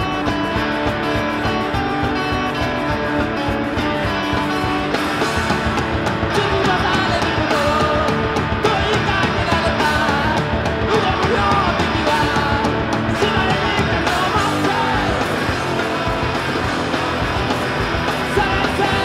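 Indie punk rock song played by a full band with electric guitars, loud and continuous.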